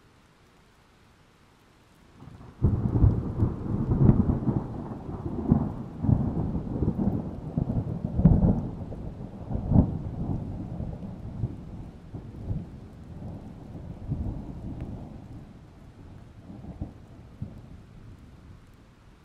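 A long, low rumble that sets in abruptly about two and a half seconds in, swells in several surges, and slowly dies away over some fifteen seconds.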